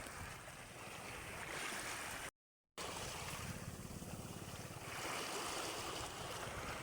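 Sea waves washing ashore, a steady rushing noise with a low rumble; the sound cuts out completely for about half a second a little over two seconds in.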